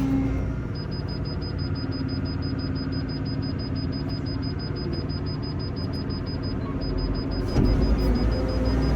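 Excavator diesel engine running while the machine's grade-control system beeps rapidly in one high tone, its signal of how close the bucket is to the target grade. The beeping pauses briefly after about six and a half seconds, and the engine gets louder near the end.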